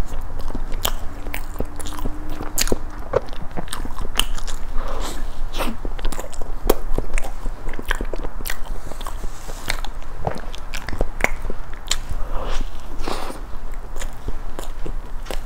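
Close-miked biting and chewing of a soft cream-filled castella sponge cake, with many small sharp mouth clicks.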